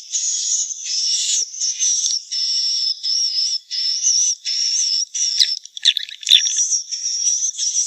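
Recorded swiftlet calls: runs of high, wavering twittering chirps repeated with short gaps between them, with a louder, denser burst about six seconds in. This is the kind of call played to lure swiftlets into a nesting house.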